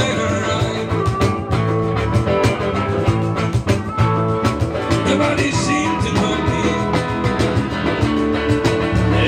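Live band playing rock with a steady drum beat, with harmonica as a lead instrument.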